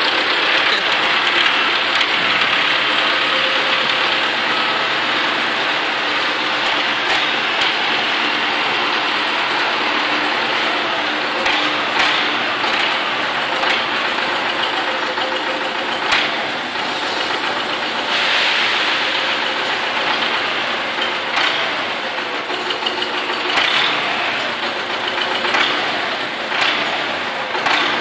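MTZ-82 tractor's four-cylinder diesel engine running steadily while it works the front loader, with a few sharp knocks from the loader along the way.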